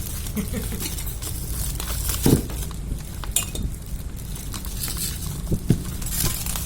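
Scattered light clinks and knocks of hard objects being handled, a few sharper knocks spread through, over a steady low hum.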